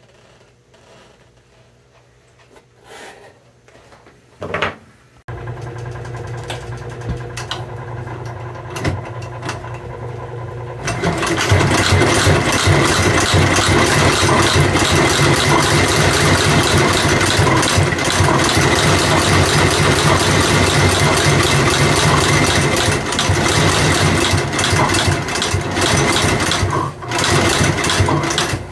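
Sutton outsole stitching machine: its motor starts suddenly about five seconds in with a steady hum. From about eleven seconds the machine runs loudly with a rapid, even clatter as it stitches the half sole to the boot's welt, with a brief dip near the end.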